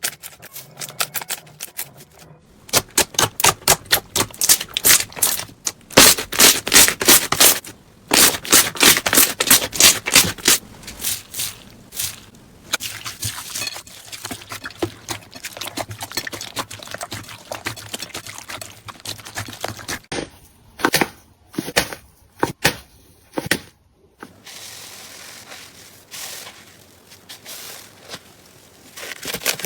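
Crunchy slime being squeezed and pressed by hand, giving dense runs of crisp crackles and pops in spells of a few seconds, thinning to sparser pops with short pauses in the second half.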